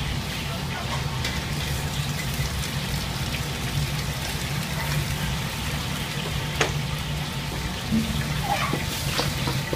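Water boiling in a wok over a gas wok burner's steady rush, with splashing and dripping as a wire strainer basket of blanched food is lifted out and drains back into the wok. A few sharp metal clicks from the strainer and utensils about six and a half and eight seconds in.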